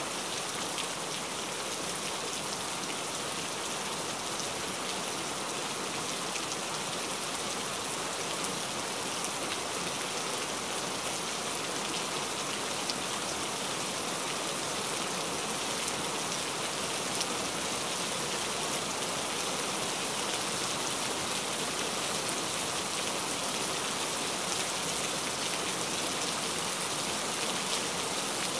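Steady rain falling, an even hiss with scattered ticks of individual drops.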